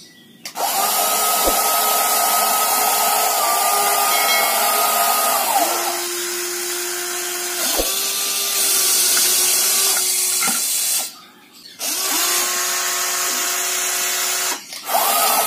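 Small electric motors and plastic gearing of a remote-control toy vehicle whining as it drives, the pitch gliding up as it starts and down as it stops. The whine drops to a lower pitch about halfway, stops briefly twice in the second half, then starts again.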